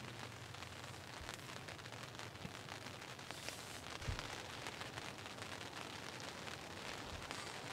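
Steady patter of light rain on a fabric ground blind, with a few faint taps and a soft low thump about four seconds in.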